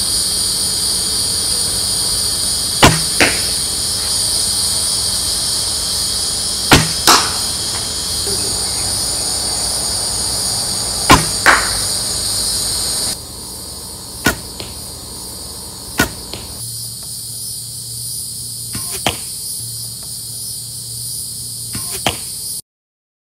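A 52 lb Osage orange longbow being shot three times: each release gives a sharp string slap, and the arrow hits the target about a third of a second later. Steady cricket chirping runs underneath and drops away about halfway. After that come four more single sharp shots.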